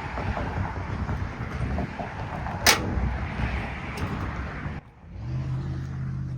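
Outdoor road traffic noise, a steady low rumble, with one sharp knock about two and a half seconds in as the teletype parts are handled. After a short break near the end, a steady low engine-like hum takes over.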